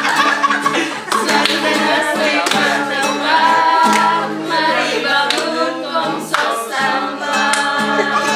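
A small mixed group of voices singing together, accompanied by a strummed acoustic guitar.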